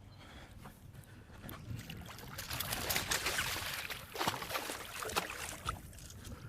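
Water splashing as a big hooked bass thrashes at the surface while being landed beside the boat, the splashing building about two seconds in and easing near the end.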